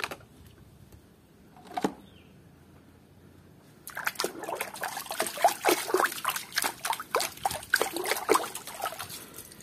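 Water sloshing and splashing in quick, irregular strokes as a muddy plastic animal toy is washed by hand. The splashing starts about four seconds in, after a quiet stretch with a faint knock or two.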